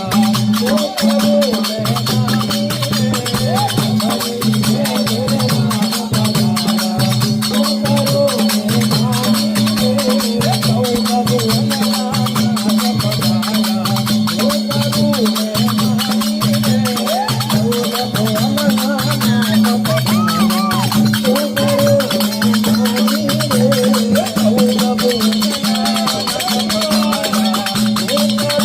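A devotional Gujarati dhun (chanted hymn) sung by a group over a steady drone, a low pulsing beat and dense, continuous rattling hand percussion.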